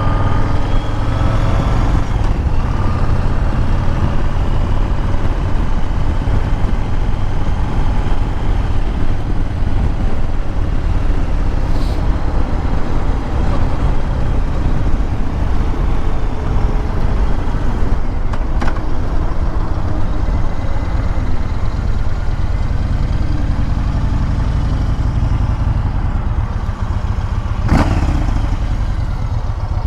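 Motorcycle engine and exhaust running while riding, the engine pitch gliding in the first couple of seconds. The engine is warmed up, when its exhaust sounds far better than it does cold. A few short knocks come through, about 12, 18 and 28 seconds in.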